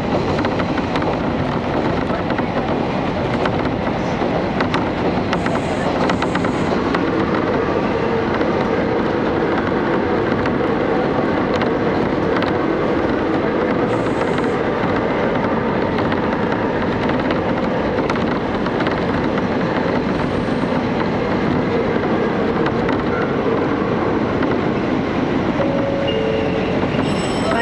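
KiHa 31 diesel railcar running at speed, heard from inside the passenger cabin: the steady noise of its diesel engine and wheels on the rails, with a few faint clicks.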